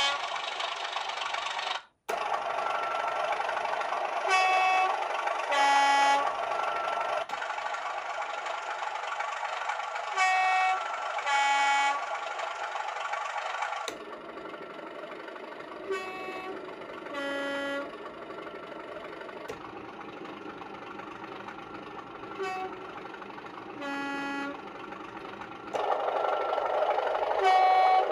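Class 37 diesel locomotive sound file played from a LokSound 5 decoder through a series of small DCC model-railway speakers. The locomotive's horn sounds as a pair of blasts about every six seconds over the engine running underneath. The tone and loudness of both change sharply each time the sound switches to a different speaker.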